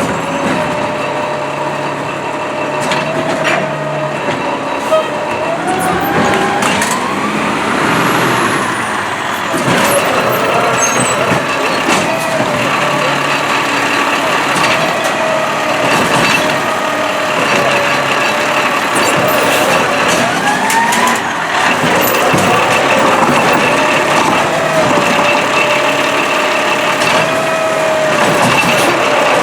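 Peterbilt 320 refuse truck with a New Way Rotopac body running, its engine and hydraulics making a steady whine that rises in pitch twice as it revs up. Scattered mechanical knocks can be heard over it.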